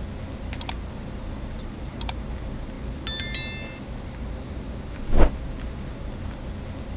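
Blender jugs and utensils being handled at a smoothie stall: a couple of sharp clicks, a short metallic ring about three seconds in, and a louder thump about five seconds in as a plastic blender jug is set down on its base. A steady low background hum runs underneath.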